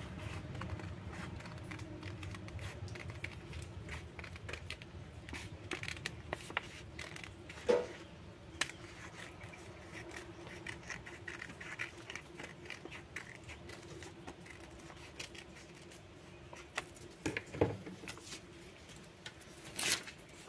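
Steel scissors snipping through paper: irregular short cuts and paper rustle as a circle is cut out, with a few sharper, louder clicks.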